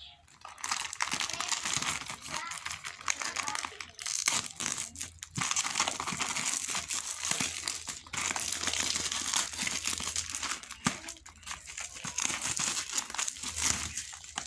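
Plastic candy and snack wrappers crinkling and tearing as they are handled and opened, a dense crackle broken by a few brief pauses.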